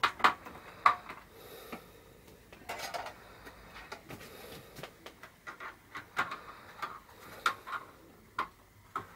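Irregular small plastic clicks and taps from a finger pressing the control buttons on an 18-inch Neewer LED ring light, with a brief rustle of handling about three seconds in.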